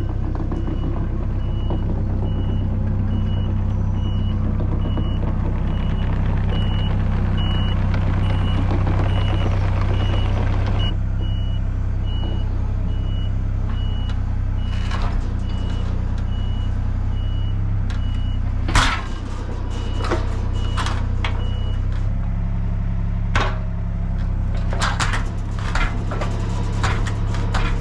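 Excavator's diesel engine running with its alarm beeping steadily, until the beeping stops about three-quarters of the way through. Sharp knocks and clanks of the machine handling a log come in the second half, the loudest about two-thirds in.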